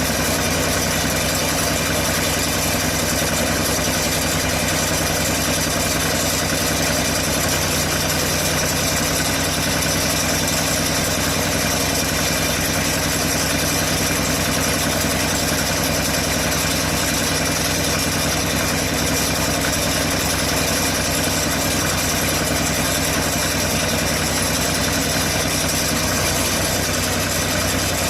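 Engine of a portable bandsaw sawmill running at a steady, unchanging speed.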